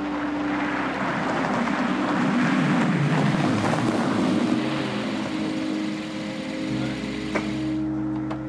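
Mazda hatchback driving slowly up to and close past on a packed-snow road, engine and tyres on snow growing louder for a few seconds and then easing off, with a couple of small clicks near the end.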